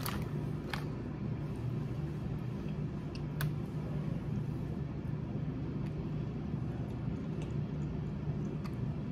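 Steady low background hum, with a few faint clicks from handling a mochi in its plastic wrapping.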